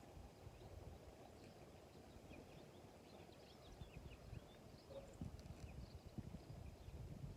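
Faint irregular thumps and knocks, more of them in the second half, with a few faint short high chirps near the middle.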